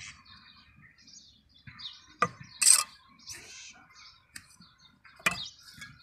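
A bricklayer's steel trowel and bricks at work on mortar: two sharp clinks about two and five seconds in, with a short scrape just after the first. Birds chirp faintly.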